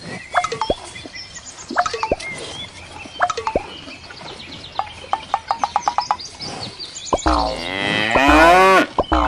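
A string of short cartoon-style pops and clicks, including a quick run of ticks around the middle, then one long, loud cow moo about seven seconds in, rising and then falling in pitch.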